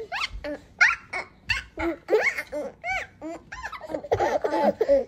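High-pitched laughter in short rising-and-falling bursts, several a second.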